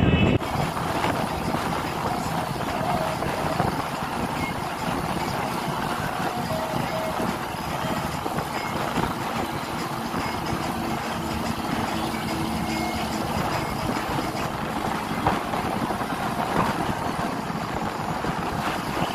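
Bus running along a highway, heard from a window seat: a steady engine drone under a rush of road and wind noise.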